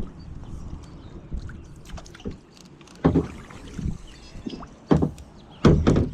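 Fishing kayak under way: paddle strokes in the water and knocks against the hull. There are four or five thumps at uneven intervals, the loudest near the end.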